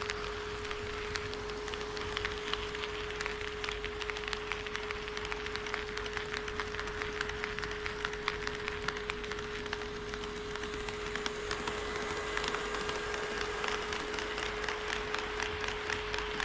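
HO-scale model train running on KATO Unitrack, its wheels clicking rapidly over the rail joints over a steady whine.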